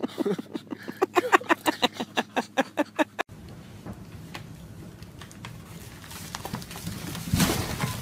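A dog barking in a quick run of short barks, about five or six a second, which cuts off abruptly about three seconds in. After that comes a steady low hiss with faint ticks, and a louder brief rustle near the end.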